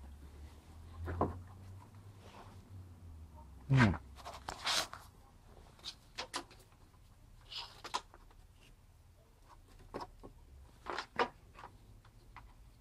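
Scattered clicks, clanks and knocks from handling wet, rust-crusted steel wheel rim rings and a metal clamp after the rust-removal electrolysis has been switched off, with one louder knock about four seconds in.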